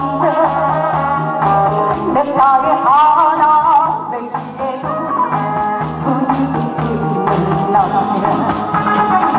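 A woman singing a Korean song into a handheld microphone over a loud recorded backing track, the melody wavering with vibrato.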